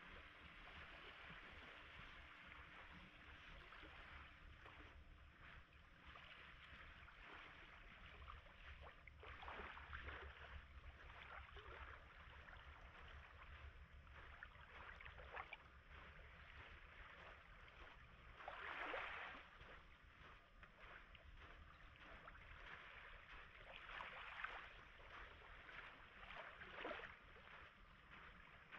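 Faint lapping of small Baltic Sea waves, a soft swell of water every few seconds.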